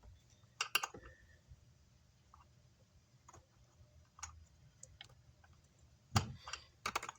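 Scattered sharp metallic clicks and taps of a hand tool working on parts inside a car amplifier's chassis, trying to loosen a piece that is not budging.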